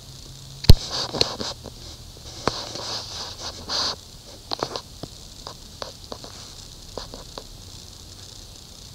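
Hands handling paper and drawing things: scattered clicks, taps and scratchy rustles, with a sharp knock under a second in and a busier stretch over the next few seconds.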